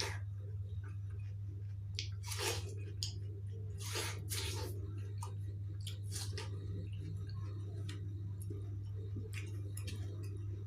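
Close-up wet chewing of juicy watermelon, with a few louder squishy bites about 2.5 s and 4 s in, over a steady low hum.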